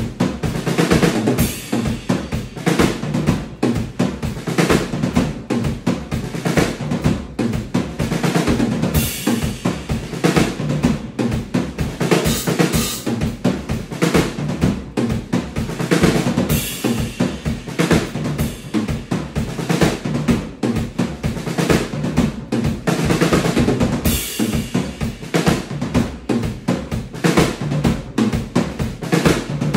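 Acoustic drum kit played in a steady driving groove of kick, snare and cymbals, with fills. Crash cymbals ring out several times, about nine, twelve, sixteen and twenty-four seconds in.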